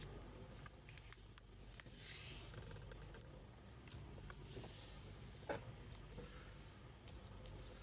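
A sheet of origami paper being folded and creased by hand: faint rustling and rubbing in a few soft swells, with a sharper crinkle a little past halfway, over a low steady hum.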